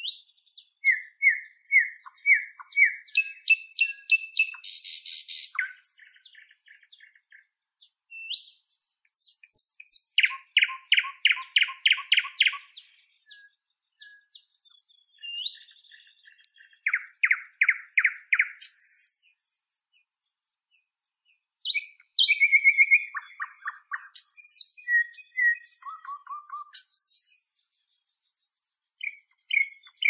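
Nightingale singing: a string of varied phrases with short pauses between them. It mixes fast runs of repeated notes, whistled notes that sweep up and down, and a brief harsh buzzy note.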